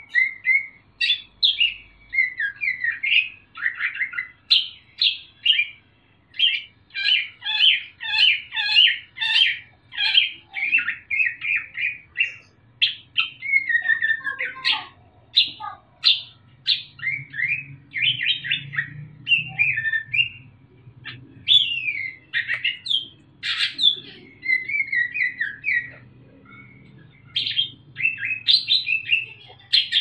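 A young Sumatran greater green leafbird (cucak ijo) singing loudly in the rapid, chattering 'ngriwik' style: a dense, near-continuous stream of short, quickly changing high notes, with a short pause a little before the end.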